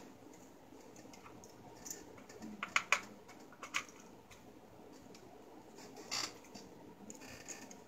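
Scattered light clicks and taps of ring light and tripod stand parts being handled and fitted together, with a quick cluster about three seconds in and another click around six seconds in.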